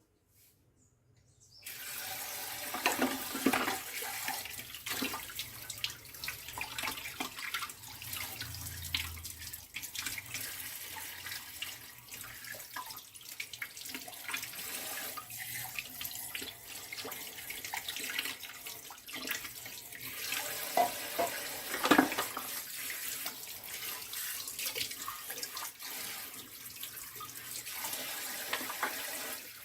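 Kitchen tap water running into a sink as the juicer's parts are rinsed under it, with scattered knocks as the parts are handled. The water comes on about two seconds in, and there is one louder knock about two-thirds of the way through.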